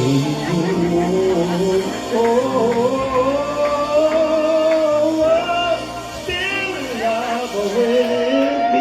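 A male singer performing a slow R&B ballad live over backing music, holding long notes that bend and slide in pitch, with a quick vocal run about six seconds in.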